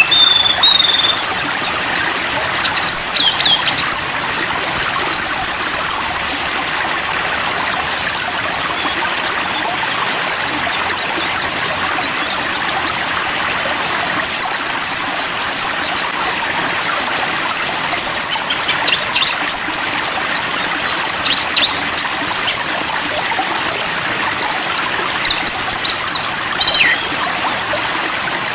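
Steady rush of flowing water, like a small stream. Over it, short bursts of high songbird chirps and whistles come every few seconds.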